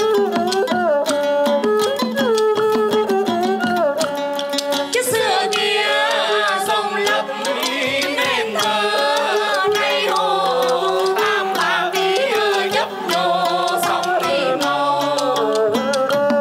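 Xẩm, Vietnamese blind-minstrel folk song: sung voices over a small traditional ensemble of plucked lute and fiddle, with wooden clappers ticking out a steady beat. The sound grows fuller about five seconds in.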